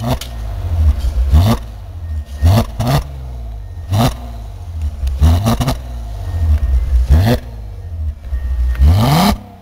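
2008 VW R32's 3.2-litre VR6 through its stock exhaust, running at idle with about nine quick throttle blips, each a short rise in revs that drops straight back. Near the end one rev climbs higher and longer before cutting off.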